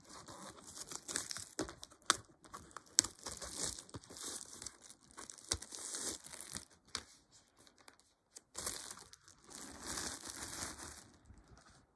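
Clear plastic shrink wrap crinkling and tearing as it is peeled off a DVD case, in uneven spells with sharp crackles. It pauses briefly, starts again, and stops shortly before the end.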